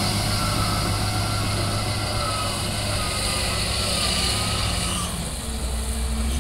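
Wheel loader's diesel engine running as the machine drives with a loaded bucket of sand, with a wavering high whine over it for the first four seconds or so. About five seconds in the whine stops and the low engine hum strengthens as the boom starts lifting the bucket.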